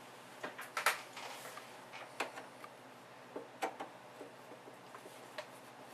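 Scattered sharp clicks and taps of a screwdriver working the screws on a small metal desktop PC case, the loudest about a second in.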